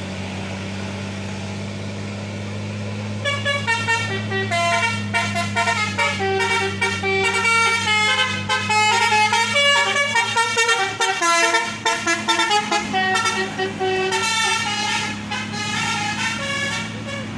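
Bus's melodic 'telolet' horn playing a tune of quick stepped notes, starting about three seconds in and fading near the end, over the steady drone of a diesel engine.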